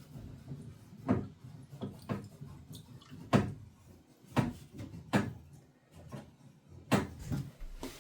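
Irregular knocks and clunks, about six in eight seconds, from tools and the freshly cut pipe being handled during plumbing work.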